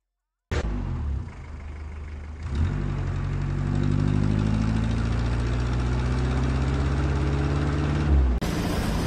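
Heavy truck's diesel engine revving hard under load, its pitch climbing slowly, as the rear dual wheels spin in loose sand under a huge boulder. It starts abruptly about half a second in, and near the end it cuts to a different engine noise.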